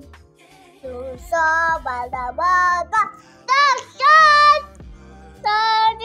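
A young girl singing close to a phone's microphone: a run of short held notes that waver and slide in pitch, with brief breaks between them.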